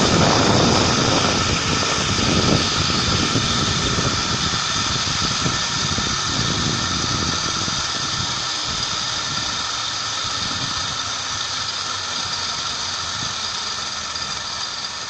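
Zipline trolley pulleys running along the steel cable with a steady high whine, over wind rushing across the microphone. The wind rush thins out and the whole sound gets gradually quieter.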